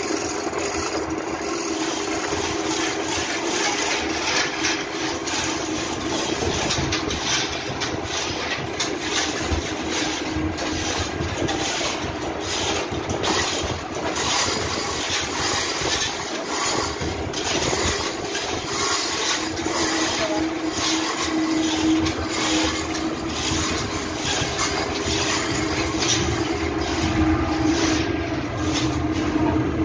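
Steady, loud drone of running machinery in a ship's engine room, with scattered short metallic knocks throughout.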